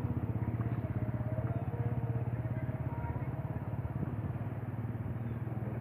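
A small engine running steadily with a fast, even pulse, fading slowly near the end.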